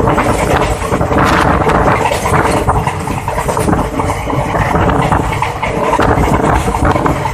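Passenger train coach running at speed: steady wheel-and-rail rattle and coach noise, with wind buffeting the microphone held out of the window.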